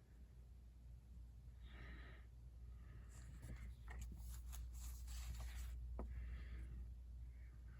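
Crisp new paper banknotes rustling and crinkling as they are handled, with a run of sharp crackles from about three to six seconds in, over a low steady hum.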